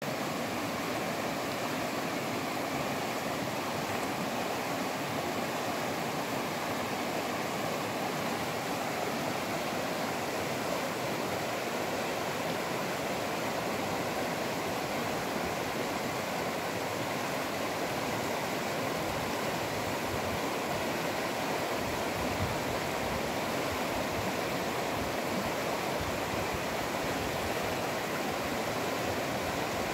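Shallow mountain river rushing steadily over a stony riffle.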